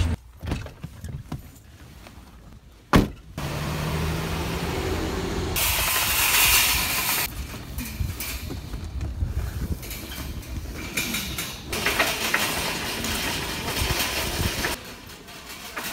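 A low car-cabin hum, then a single sharp click about three seconds in. After that comes the uneven rattling and rolling of a wire shopping cart being pushed across asphalt.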